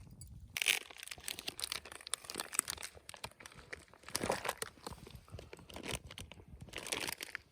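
Crinkling and rustling of handled material in irregular bursts, with small clicks, loudest a few times.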